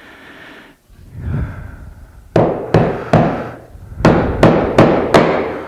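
A hammer driving a quarter-inch wooden peg into a pinned joint in hardwood: sharp knocks beginning a couple of seconds in, three spaced strikes and then a quicker run of about five.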